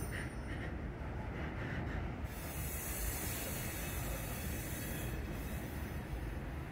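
Freight train of covered hopper cars rolling slowly past: a steady rumble of steel wheels on rail, joined a little over two seconds in by a high hiss.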